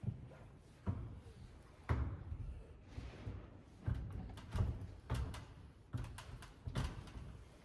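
Irregular knocks and clunks, about ten in seven seconds, each a sharp hit with a heavy thud behind it, like parts and tools being handled and fitted during installation work.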